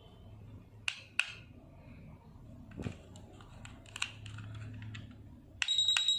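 A few light clicks, then near the end a wireless nurse call pager receiver starts a rapid high-pitched beeping alert, about eight beeps a second, signalling an incoming call.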